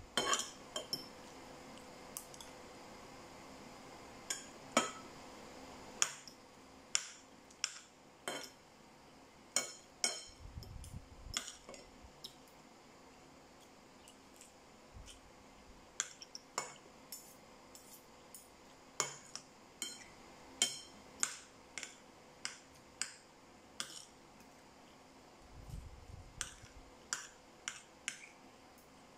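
Metal spoon and fork clinking against white ceramic bowls: repeated sharp clinks with a brief ring, at an irregular pace of roughly one a second.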